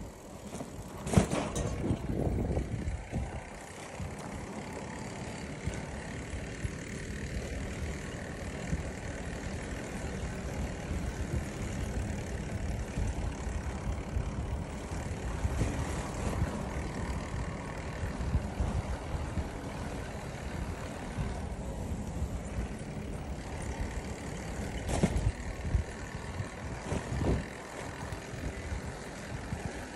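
Low, uneven rumble of wind and movement on the microphone while travelling along a road, with a sharp knock about a second in and another near the end.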